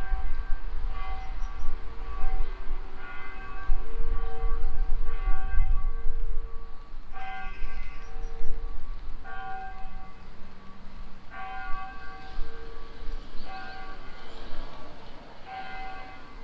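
Church bells ringing, one strike about every second, each ringing out over a steady hum, growing fainter towards the end. A low rumble lies under the first several seconds.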